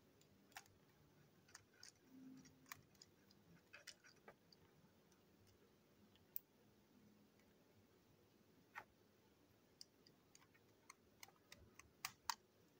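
Faint, scattered clicks and ticks of a small screwdriver working the screws of a Plarail toy train's plastic chassis, with a few quicker clicks near the end.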